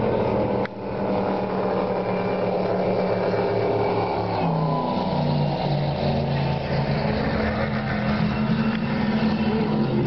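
Cigar-style speedboat's engines running hard at speed. About four and a half seconds in the engine pitch drops and wavers, then climbs and holds steady.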